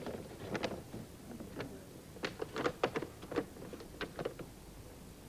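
A run of irregular light clicks and knocks, about a dozen in all, thickest in the middle.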